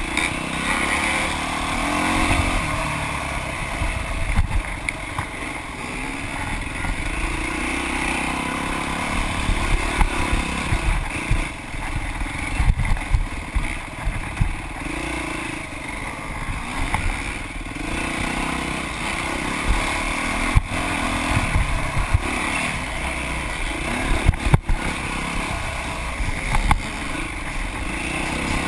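Dirt bike engine revving up and down through the gears as it races over rough off-road trail, with sharp knocks and rattles from the bike over bumps.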